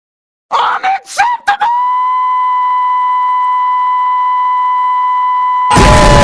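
A few short chirping whistle sounds, then a steady high whistle tone held for about four seconds. Near the end a loud explosion-like blast breaks in, with a falling tone inside it.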